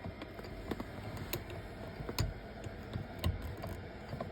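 Scattered light clicks and knocks of plastic trim and parts being handled and fitted back into a car's gear selector console, with about four sharper clicks spread irregularly through it.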